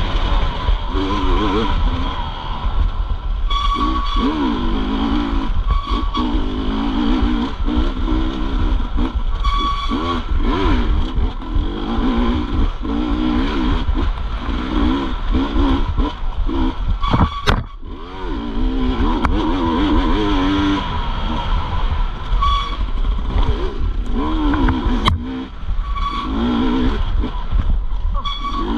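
Off-road motorcycle engine being ridden hard, its revs rising and falling over and over as the throttle is opened and shut. There is a short lull about two-thirds of the way through.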